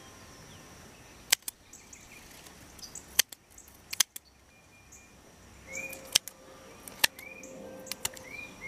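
Scissors snipping snap pea pods off the vine: a series of sharp single snips about one to two seconds apart. A bird chirps several times in the background during the second half.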